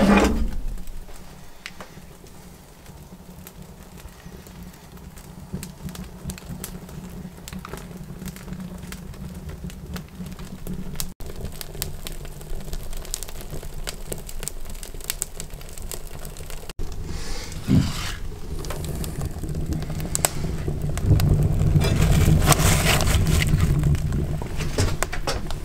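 Wood fire crackling and popping in a small cast-iron wood stove, with a low rushing of the flames. It grows louder in the last few seconds.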